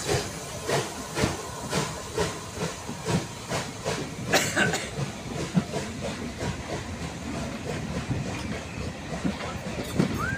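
Rebuilt Bulleid West Country class steam locomotive 34028 Eddystone pulling away from a standstill, its exhaust beating about twice a second over a hiss of steam. In the second half, the exhaust recedes under the clatter of the coaches' wheels on the rails as they roll past.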